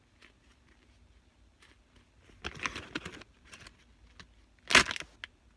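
Plastic toy packaging being handled, crinkling and rustling in short irregular bursts, with one louder crinkle near the end.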